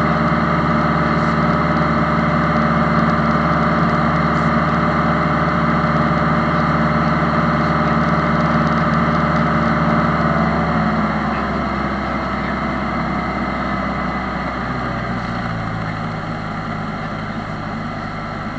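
Single-engine light airplane's piston engine and propeller running steadily, heard from inside the cockpit. About eleven seconds in the engine is throttled back: its pitch drops and it gets quieter, as when power is reduced in the landing pattern.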